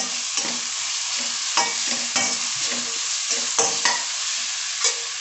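Cut onions, with garlic and ginger-chilli paste, frying in ghee and Dalda in a kadai: a steady sizzle. A spatula scrapes and knocks against the pan about seven times as they are stirred.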